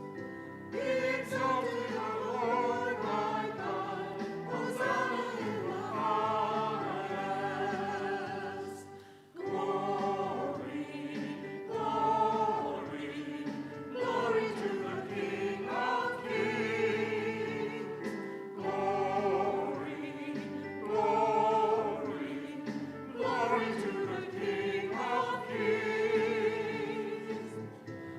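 Congregation or choir singing a hymn in phrases over steady instrumental accompaniment, with a short break between phrases about nine seconds in.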